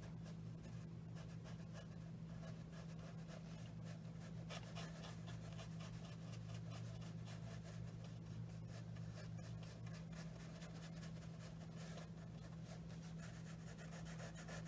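Faint scratchy dabs of a paintbrush on watercolour paper, many small strokes in a row, over a steady low hum.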